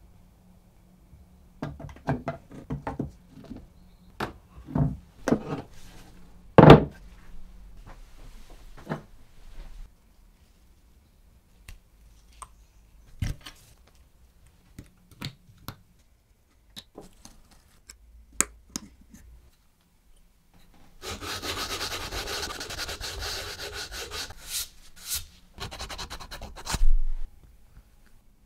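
Small wooden parts being handled on a tabletop: a run of sharp taps and knocks in the first several seconds, scattered single clicks, then a few seconds of steady rubbing, and a few last knocks near the end.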